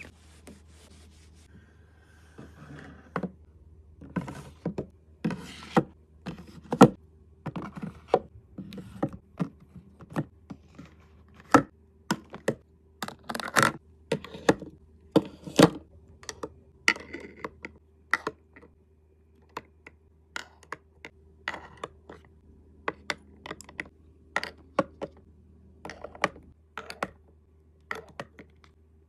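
Makeup products and containers being set down and slotted into a white vanity organiser: irregular light taps, clicks and knocks of small items against hard surfaces, with some rubbing and scraping.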